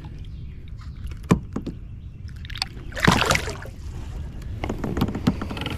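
Water splashing beside a kayak as a released bass kicks away, loudest in one burst about three seconds in, with a few light knocks.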